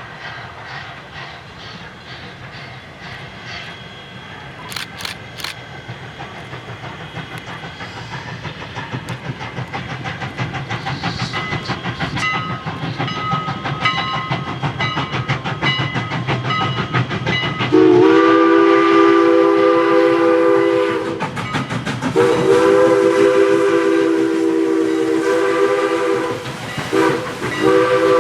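A steam locomotive approaching on jointed rail with a rhythmic clatter that grows louder, then sounding its chime whistle, a chord of several tones, in two long blasts, a short one and another long one, the long-long-short-long grade-crossing signal.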